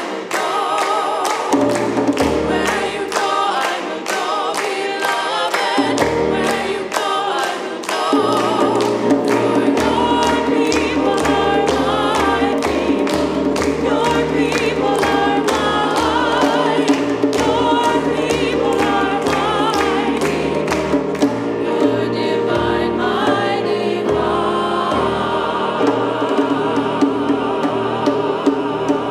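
Church choir singing with piano accompaniment, the singers clapping along in a steady rhythm.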